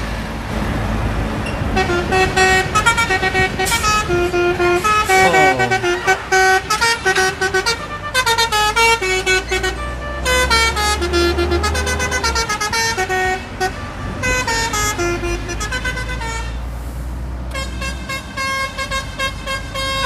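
Truck's multi-tone 'telolet' air horn playing a tune in quick stepped notes, with a falling slide about five seconds in, over the low rumble of a truck engine and road noise.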